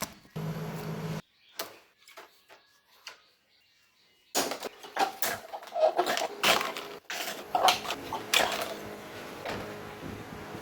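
A brief steady motor-like hum near the start, then a quiet stretch with a few clicks, then from a little under halfway a busy run of clicks, taps and knocks, the sound of small parts being handled and fitted.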